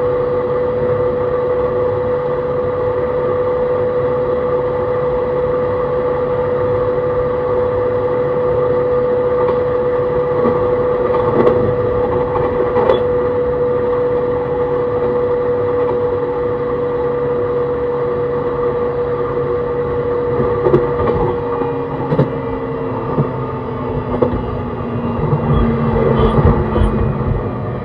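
Onboard running sound of an E131 series electric train with a Hitachi hybrid SiC inverter: a steady motor tone over wheel-on-rail rumble, with a few sharp clacks from the track. In the last several seconds the motor tones slide down in pitch as the train slows.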